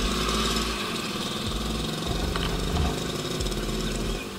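Two-stroke motorcycle engine and exhaust running under way, the engine note rising and falling with the throttle.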